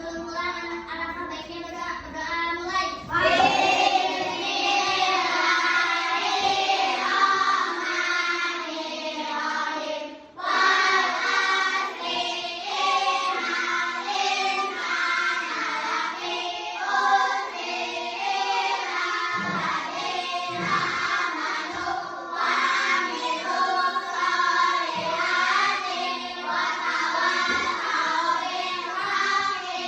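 Several voices singing a song together. It swells about three seconds in and breaks off briefly about ten seconds in before carrying on.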